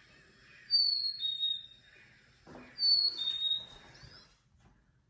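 Chickadee singing its whistled song twice, each a clear high note dropping to a slightly lower one.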